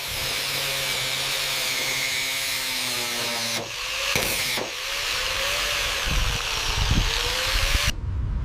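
A power tool running with a loud hiss and a steady motor whine. It breaks off about three and a half seconds in, then runs again with a wavering pitch until it cuts off suddenly near the end.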